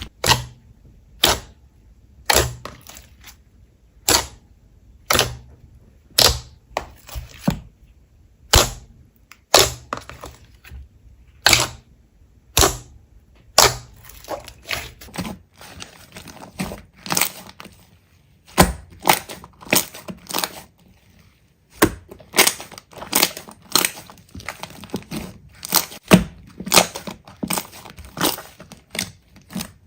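Slime being pressed and squeezed by hand, giving off sharp crackling pops at an uneven pace of one to three a second, coming faster near the end.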